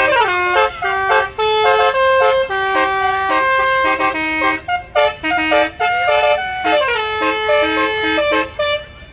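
Tour bus's 'basuri' musical air horn playing a melody of held notes that step up and down in pitch, with short slides between some notes. It stops shortly before the end.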